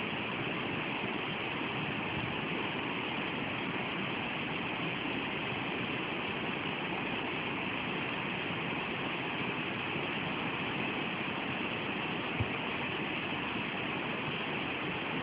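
Steady rush of a mountain river's white water, an even hiss, with one brief soft knock about twelve seconds in.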